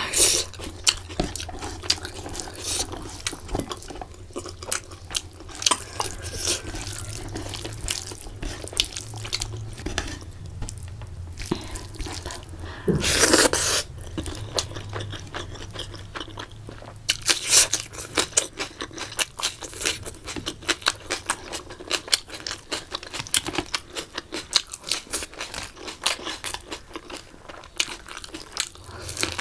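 Close-miked eating of rice and curry by hand: wet chewing and lip-smacking with many small sticky clicks. A louder, rushing noise lasting under a second comes about 13 seconds in.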